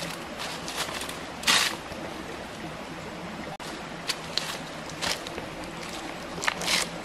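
Leafy branches rustling in short, sharp bursts as they are pulled and handled, the loudest about a second and a half in and a cluster near the end, over a steady background hiss.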